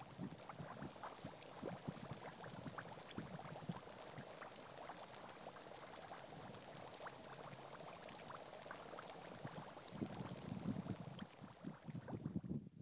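Air bubbles fizzing and popping out of dry streambed sand as the advancing river water soaks into it: a dense, steady crackle of tiny pops.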